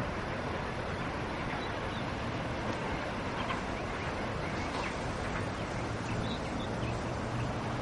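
Steady low rumble of a train pulling away in the distance, its rear car receding down electrified track behind an AEM-7 electric locomotive, with faint short chirps scattered over it.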